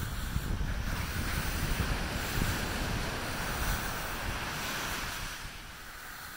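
Ocean surf washing on the beach, with wind buffeting the microphone; the wash eases off near the end.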